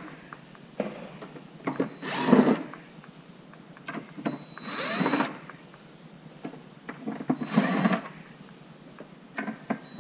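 DeWalt cordless drill with a T27 Torx bit backing screws out of a UTV door frame, in three short runs about 2, 5 and 7.5 seconds in, the motor's pitch bending as it spins up and down. Faint clicks of handling come between the runs.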